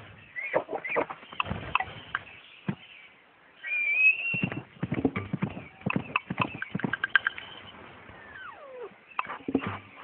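Crumpled paper crinkling and crackling in quick, irregular crackles as it is handled and shaped. A brief high call is held about four seconds in, and a sliding tone falls in pitch near the end.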